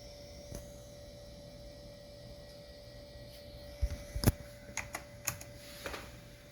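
A handful of sharp clicks and knocks in quick succession, starting about four seconds in, over a steady faint hum. They come from handling a Macintosh Quadra 660 AV and its keyboard while trying to power it up, and the computer does not start.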